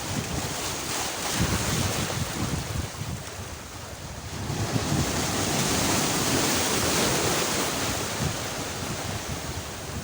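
Sea waves washing onto the shore, one swelling louder about halfway through, with wind buffeting the microphone.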